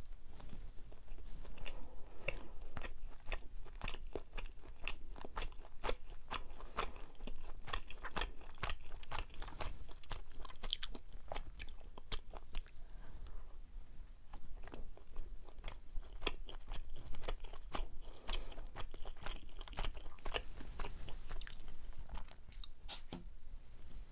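Close-miked chewing of soft mugwort steamed rice cake (ssuk-baekseolgi), with many quick wet mouth clicks and smacks in an irregular run.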